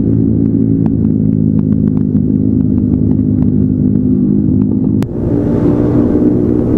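Motor scooter engine, likely a Yamaha NMAX 155's single-cylinder, running steadily at a cruise under way. About five seconds in there is a sharp click, after which wind hiss is stronger.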